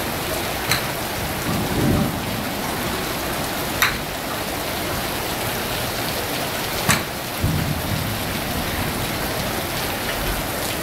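Heavy rain falling steadily, with three sharp clicks of golf clubs striking balls about three seconds apart and a couple of brief low rumbles.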